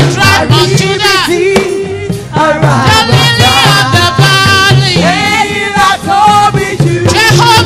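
Live gospel praise music: a saxophone carries a bending, sliding melody over a band with a steady, repeating bass line.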